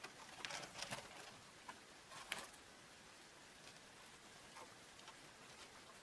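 Small wild birds' wings fluttering as they land on and take off from outstretched hands, a few soft flutters within the first second and a louder one a little after two seconds. Otherwise near silence, with a few faint short bird calls.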